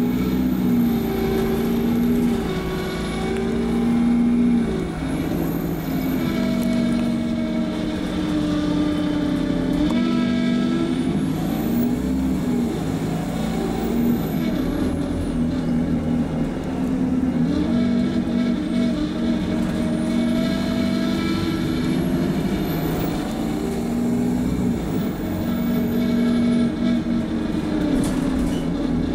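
Alexander Dennis Enviro200MMC bus's diesel engine and Allison automatic gearbox, heard from inside the passenger saloon, pulling away and accelerating. The engine note rises and drops several times as the gearbox changes gear, with a 4-3 downshift near the end.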